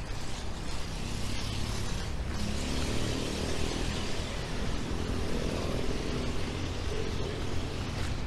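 A car running close by on a street, its engine pitch showing over a steady hiss of outdoor traffic noise.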